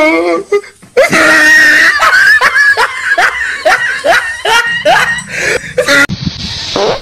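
A person laughing hard in a quick run of short rising 'ha' sounds, about three a second.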